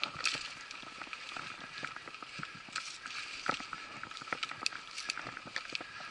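Mountain bike ridden slowly along a dirt forest singletrack: tyre noise on the ground with frequent sharp clicks and rattles from the bike and the trail.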